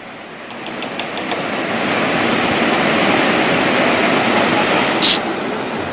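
A steady rushing noise with no pitch, swelling over the first two seconds and then holding, with a short sharp hiss about five seconds in.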